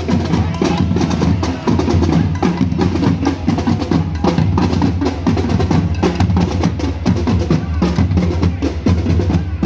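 Loud drum-heavy music: fast, dense percussion strikes over a steady low bass.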